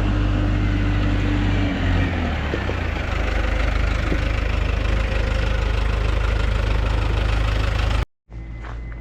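Engine idling with a steady low hum; a higher tone in it slides down and fades out about two seconds in.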